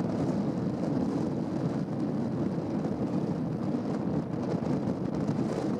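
Steady low engine rumble with a constant hum, mixed with wind on the microphone.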